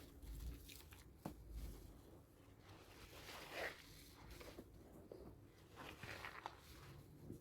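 Faint wet rubbing and squishing of hard handmade soap being lathered into foam, with a few small clicks.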